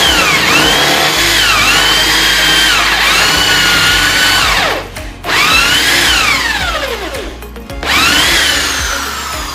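Handheld electric power tool motor whining as it works, its pitch rising and sagging under load. It cuts off about five seconds in and again around seven and a half seconds, each time winding down in a falling whine before starting up again.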